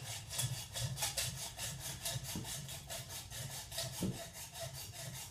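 Hacksaw cutting into the metal exhaust pipe of a truck catalytic converter/DPF unit in quick, regular back-and-forth strokes.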